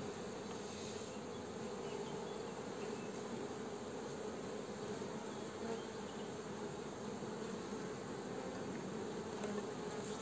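Honeybees buzzing around an opened hive whose frames are being lifted out, a steady, even hum.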